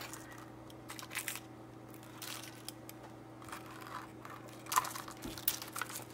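Silicone-tipped tongs turning crisp roasted potato skins on a silicone baking mat: scattered short scrapes and crinkles, the loudest about five seconds in, over a faint steady hum.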